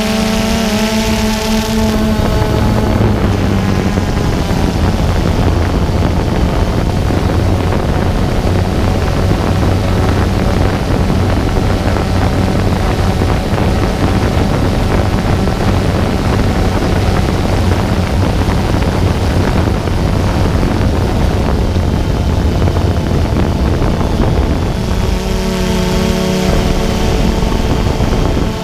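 Multirotor drone's motors and propellers buzzing steadily, with wind rushing over the camera's microphone. A whine of several steady pitches stands out near the start and again near the end.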